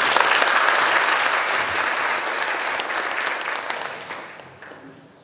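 Audience applauding, strong at first, then thinning out and dying away about four seconds in.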